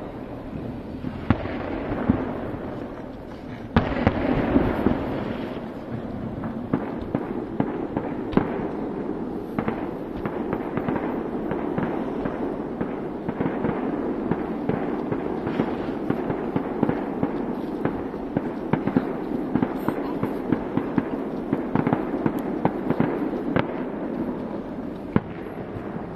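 Aerial fireworks display: many sharp bangs of bursting shells in quick succession, with crackling between them.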